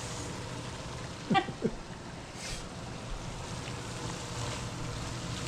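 Ground chicken and mushrooms frying in a pot with a steady sizzle. A short voice-like sound breaks in about a second and a half in.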